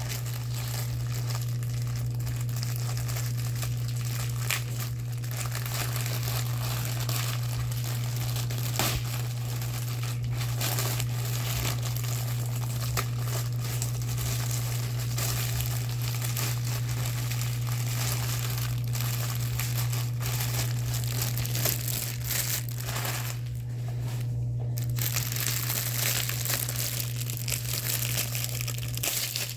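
Plastic packaging of diamond painting kits crinkling and rustling as it is handled and opened, over a steady low hum.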